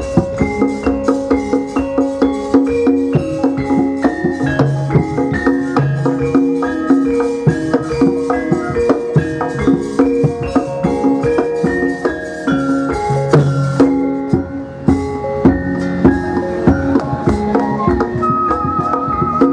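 Javanese gamelan ensemble playing: bronze metallophones and gongs ring out in interlocking held notes over regular drum strokes. Near the end a high wavering melody line enters.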